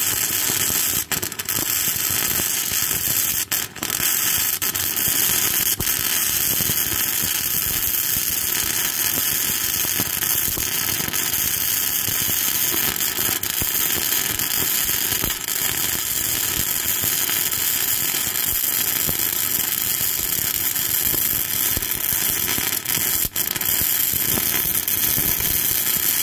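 Flux-cored arc welding with Lincoln NR-211 wire: the arc's steady, loud crackle and sputter, broken by brief breaks in the arc about a second in, near four seconds and near the end.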